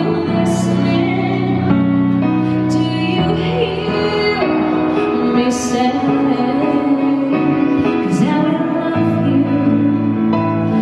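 Live band playing a slow ballad: a woman sings through a microphone over sustained accompaniment chords, with a violin.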